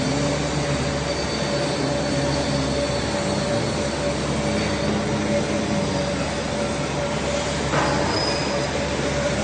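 Steady workshop machinery noise with a constant high hum running through it, and a single short knock about eight seconds in.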